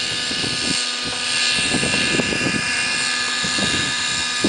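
T-Rex 600 Nitro Pro radio-controlled helicopter in flight: its nitro glow engine and spinning rotors make a steady, high-pitched whine rich in overtones.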